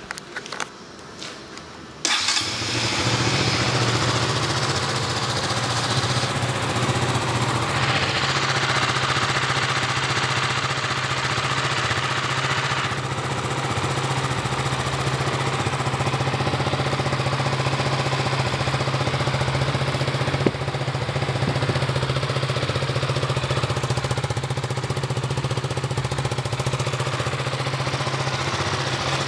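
KTM 200 Duke's single-cylinder four-stroke engine starting about two seconds in after a few faint clicks, then idling steadily.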